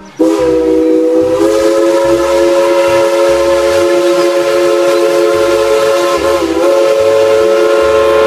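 Steam-train whistle: a chord of several tones held steady and loud for the whole stretch. It steps up slightly in pitch about a second in and wavers briefly near the end.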